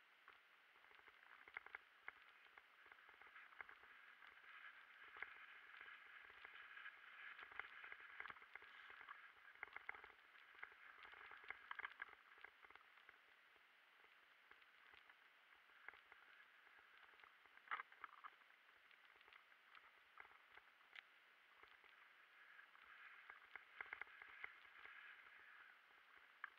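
Faint rattling and rolling noise of a mountain bike riding down a dirt singletrack, with many scattered clicks and knocks; one sharper knock comes about eighteen seconds in.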